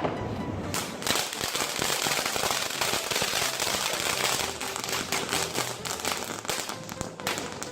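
Firecracker going off in a dense run of rapid crackling pops over a hiss. It starts about a second in and stops suddenly about six seconds later.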